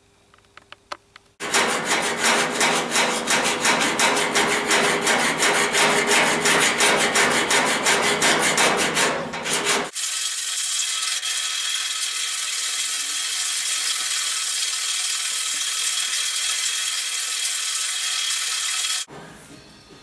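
A hand file scraping back and forth over a welded steel repair on a car's windscreen frame, about two to three strokes a second, for about eight seconds. Then, about ten seconds in, an angle grinder runs steadily against the steel for about nine seconds and stops suddenly.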